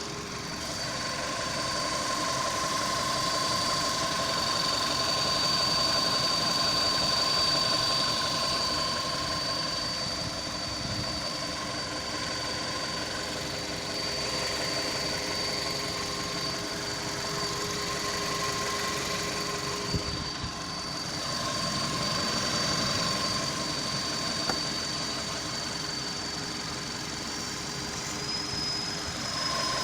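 Volkswagen Polo Sedan's CFNA 1.6-litre four-cylinder petrol engine running with a steady, high-pitched whistle from the idler pulley, the sign of a worn idler pulley bearing. The whistle steps up slightly in pitch near the end.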